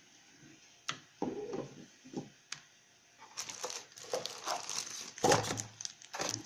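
Plastic packaging crinkling as the box's accessories are handled, after a few light clicks and knocks, with a louder knock about five seconds in.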